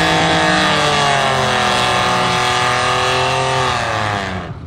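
A drag-racing street car's engine at full throttle on the strip, its note rising and dipping in pitch, then fading out about four seconds in. It has an unusual tone that a spectator likens to a mix of a rotary and a V6, and he takes the engine for a V6.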